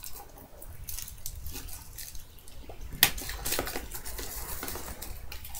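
Hands handling a cardboard hobby box and its trading card packs: scattered rustles and light clicks, with one sharp click about three seconds in.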